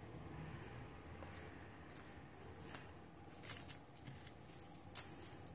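Gold-tone metal chain jewellery clinking and jingling as it is handled in the hand, in a string of short bursts, the loudest about three and a half and five seconds in.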